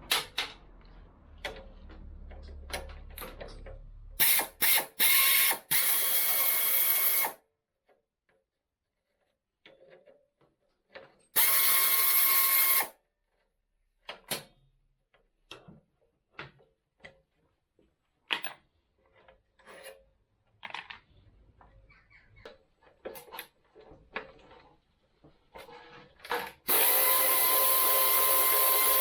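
Power drill running in a few short bursts, then in three longer runs of a second or more each, with a steady motor whine. Between the runs come scattered clicks and clinks of small parts and tools being handled.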